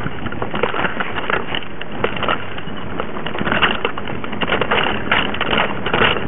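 Mountain bike rolling over a forest dirt trail, picked up by a camera mounted on the bike beside the front tyre: a continuous rumble of knobbly tyres on dirt with constant clattering and rattling knocks from the bike and camera mount over the rough ground.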